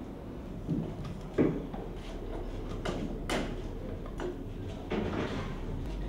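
Scattered clicks and knocks as hands work at the panel of a stainless steel solar-powered vaccine fridge (Vaccibox), over a low steady hum. The sharpest knocks come about a second and a half in and just past three seconds.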